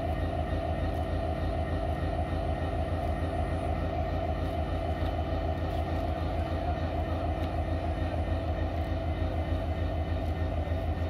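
Diesel-electric locomotive's engine idling steadily with a low, even throb.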